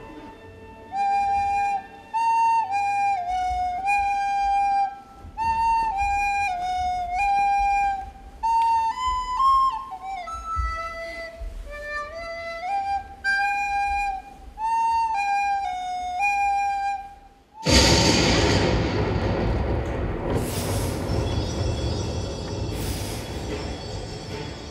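A recorder plays a slow, simple tune in short phrases with brief pauses between them. About two-thirds of the way through it stops, and a sudden loud rushing noise with a deep rumble takes over, with two sharper bursts in it.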